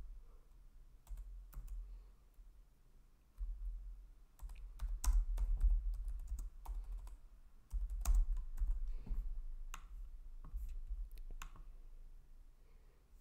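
Typing on a computer keyboard: irregular keystrokes with short pauses between them, over a low hum.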